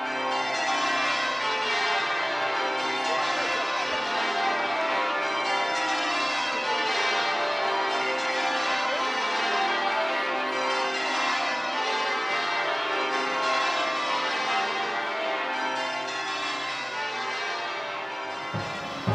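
Church bells ringing changes: a continuous peal of many bells at a steady level. A few low thumps come in near the end.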